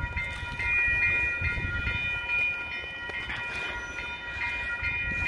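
Railway level-crossing warning bell ringing steadily, about twice a second, with a low rumble underneath.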